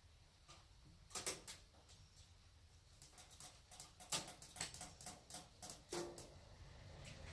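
Burning pellet stove, faint, with a scatter of irregular sharp clicks and ticks over a low steady hum.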